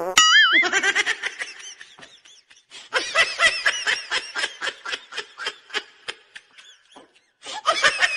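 Laughter in a long run of quick, high-pitched bursts, pausing briefly about seven seconds in. It follows a short warbling tone at the start.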